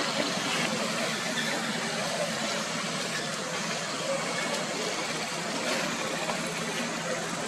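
A steady low engine hum under an even background noise, with no distinct calls or knocks.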